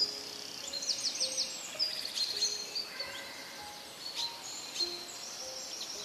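Birds chirping and calling with quick, high, repeated notes, over soft background music of single held notes at changing pitches.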